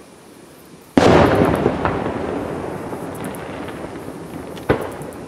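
Aerial fireworks shell exploding with a loud boom about a second in that echoes and dies away over several seconds. A second, sharper bang comes near the end.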